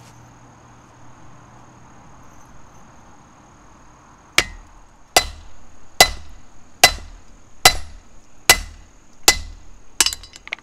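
Hand hammer striking a red-hot steel hook held in tongs on a ball-shaped anvil stake: eight blows about a second apart, starting a little before halfway, each with a short metallic ring.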